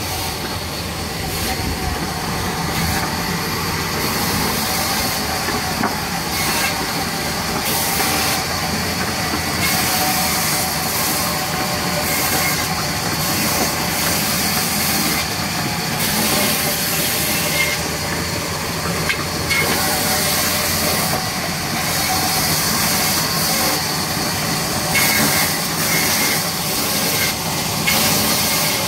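Large vertical band saw running steadily, its blade cutting lengthwise through a log, a continuous loud mechanical rush whose hiss swells and fades every second or so.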